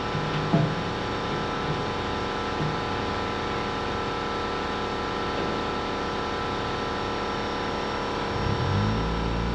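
Steady machine drone with a single clank about half a second in; near the end a deeper engine-like note rises in.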